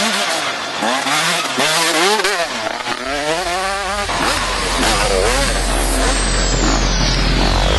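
Dirt bike engine revving hard, its pitch climbing and dropping several times as the rider works the throttle and gears. About four seconds in, a steady deep hum comes in underneath.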